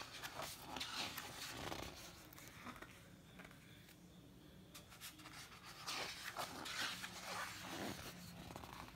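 Paper rustling as the heavy pages of a large printed booklet are handled and turned: one burst of rustling in the first couple of seconds and another from about six to eight seconds in.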